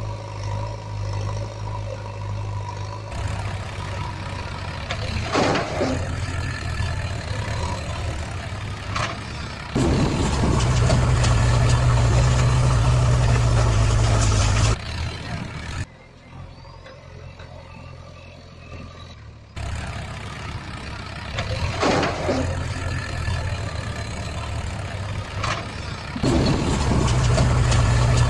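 Truck engine sound effect laid over the pictures and looped: a deep engine drone running on, getting louder about ten seconds in and again near the end, with a short quieter stretch in between.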